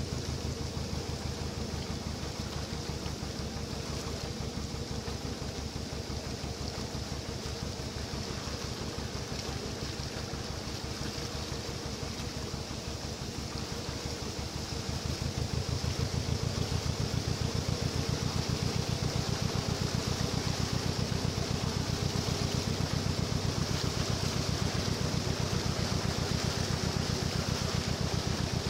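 Narrowboat engine running slowly with an even rhythmic beat, getting louder about halfway through as it is given more throttle to pull the boat out of the lock.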